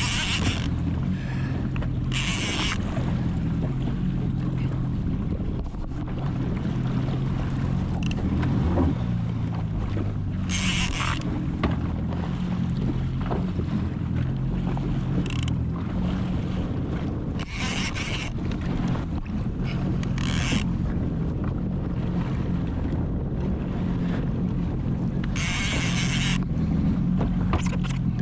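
Jet ski engine running steadily at low speed with a low hum. Short bursts of hiss come every few seconds over it.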